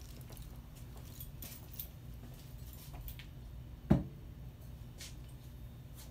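A bottle set down on a countertop with a single loud knock about four seconds in, over a low steady room hum with faint scattered clicks.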